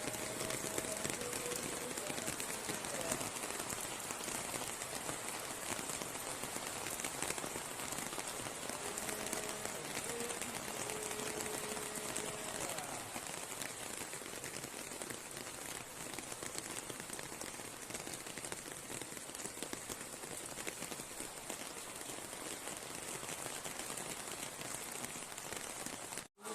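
Rain falling steadily, a dense even hiss, which cuts off abruptly near the end.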